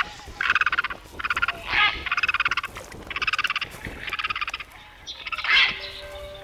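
White-tailed eagles (sea eagles) calling in short, repeated bursts of fast chattering notes, with brief pauses between the bursts.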